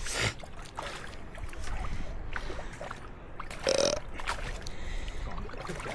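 Wind rumbling on the microphone, with faint scattered clicks, a short burst at the very start and another brief, louder sound about four seconds in.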